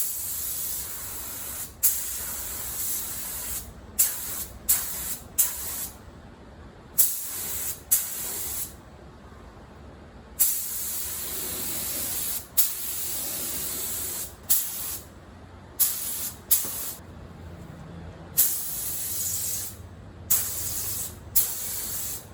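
Gravity-fed LVLP paint spray gun being triggered in repeated bursts of air hiss, each starting sharply; most bursts are short and a few run for several seconds.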